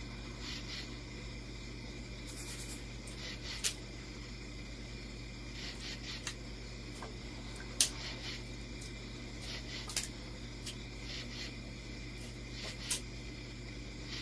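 Dwarf caiman's jaws crunching on a fish, a handful of sharp clicks spread out, the loudest about eight seconds in, over a steady low hum.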